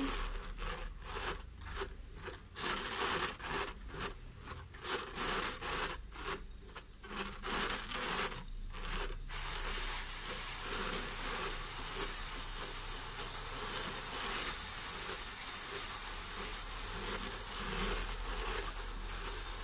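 Drum carder being cranked, fibre rasping against the carding cloth in rough strokes about twice a second. About nine seconds in this gives way to a steady hiss as a packing brush is held against the spinning drum's card cloth.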